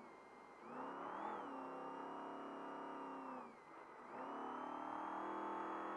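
Trophy truck engine running hard at race speed. The revs drop off twice, shortly after the start and about three and a half seconds in, and each time climb back up and hold steady.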